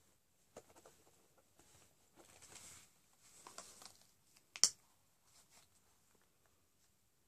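Faint handling noises of a mascara tube and its packaging: soft rustles and small taps, with one sharp click about four and a half seconds in.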